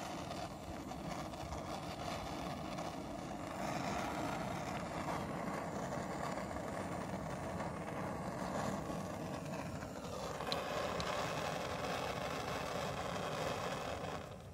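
Hand-held gas blowtorch running with a steady hissing flame as it heats motor oil in small metal cups; the hiss cuts off at the very end.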